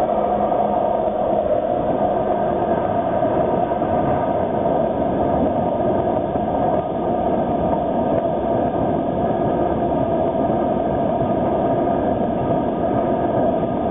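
Freight train of crude-oil tank cars rolling past, a steady rumble of steel wheels on rail with a steady humming tone over it.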